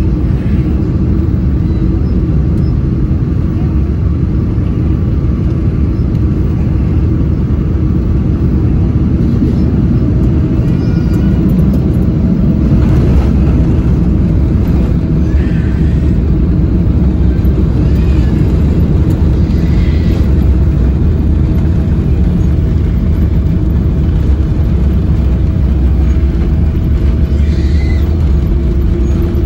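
Cabin noise of a Boeing 777-300 landing: a steady, loud rumble of engines and rushing air on final approach. About twelve seconds in the wheels touch down, and the rumble grows a little as the spoilers come up and the jet rolls out along the runway.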